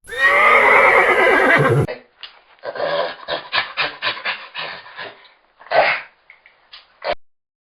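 A horse whinnying: one loud, wavering neigh of about two seconds that cuts off sharply. A run of short, rough animal calls follows, several a second.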